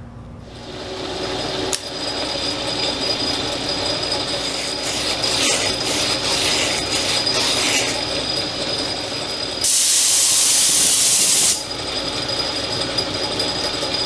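South Bend metal lathe coming up to speed and running steadily, turning a freshly cut Acme-threaded rod while an abrasive strip is held to the threads with a rough rubbing sound. About ten seconds in, a loud steady hiss lasts about two seconds before the lathe's running sound continues.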